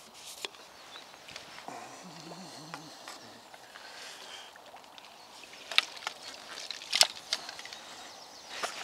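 Sharp clicks and knocks of a carbon fishing pole and tackle being handled at the bankside. The two loudest clicks come about a second apart near the end.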